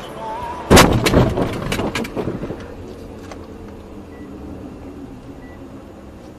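Car collision heard from inside the dashcam car: a sudden loud crash about a second in, followed by about two seconds of crunching and clattering, then a steady rumble.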